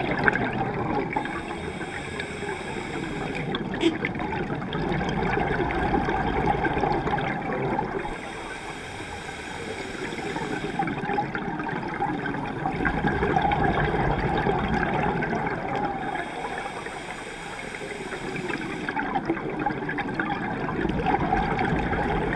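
Scuba diver breathing through a regulator underwater: three slow breaths about eight seconds apart, each a hissing inhale followed by a long gurgling rush of exhaled bubbles.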